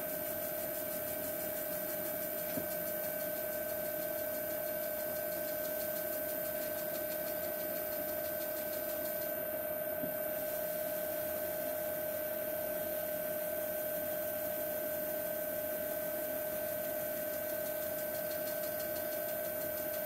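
Wood lathe running at low speed, its motor giving a steady whine and hum.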